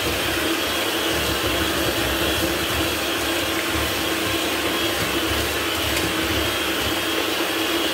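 Electric hand mixer running at a steady speed, its beaters whisking an egg into creamed butter and sugar, with an even motor whine.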